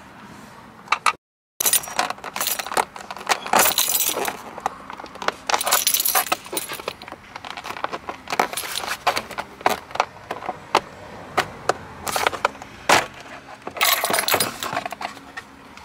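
A bunch of keys hanging from the ignition jangling and clinking, mixed with irregular plastic clicks and rattles as the steering column cover is worked loose. A brief dropout about a second in.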